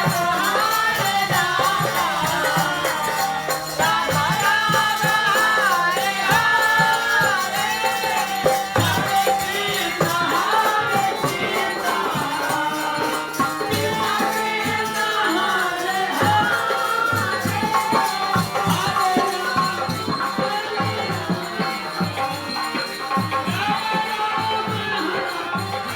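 Hindu devotional kirtan: voices singing a chant-like melody over jingling, shaken hand percussion and steady low hand-drum strokes.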